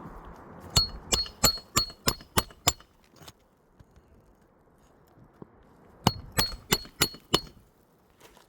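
Hammer blows on metal, two quick runs of about seven and then five strikes at roughly three a second, each with a short bright metallic ring, as a roofer works a replacement asphalt shingle on a roof.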